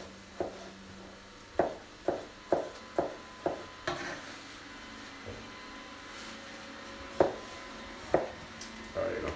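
Kitchen knife chopping a peeled potato into small cubes on a plastic cutting board. The blade knocks on the board in a run of sharp strokes about every half second, pauses for a few seconds, then strikes a few more times near the end.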